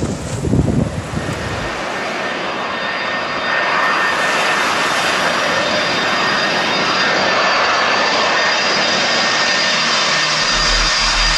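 Gusts of wind buffeting the microphone, then the steady jet roar of a four-engine Boeing 747-400 on low final approach. From about three and a half seconds in the roar grows louder, with a high steady whine over it.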